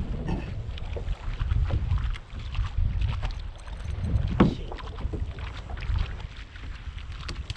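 Wind buffeting the microphone and water lapping against the hull of a small fishing boat as it drifts, a low steady rumble with scattered small knocks and clicks. One brief louder sound comes about four and a half seconds in.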